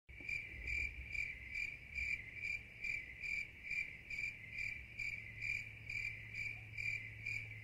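A cricket chirping in an even rhythm, about two to three chirps a second, over a low steady hum.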